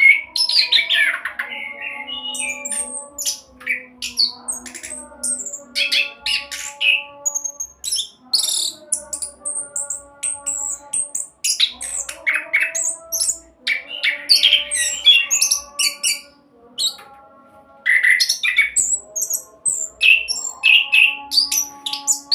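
Orange-headed thrush singing a fast, varied song of short, high chirps and whistled notes in quick runs, with only brief pauses.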